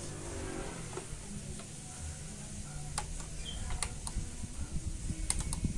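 Front-panel buttons of an Aiwa NSX-K880 mini stereo system clicking as they are pressed to test them, a few sharp clicks from about three seconds in to the end, over a low rumble.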